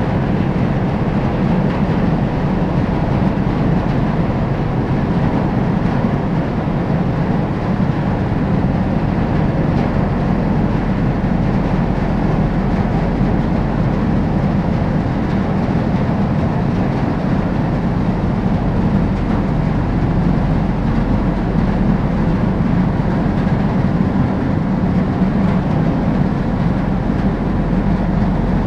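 The 2,375-ton car ferry Kuniga's diesel engines and propellers running as the ship slides along the quay, a steady heavy rumble with churning water.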